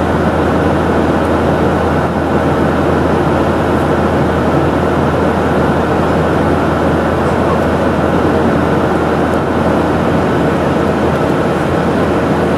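Steady cabin noise of a jet airliner at cruise altitude, the engine and rushing airflow heard from inside at a window seat over the wing. It is a loud, even rush with a low hum underneath and no changes.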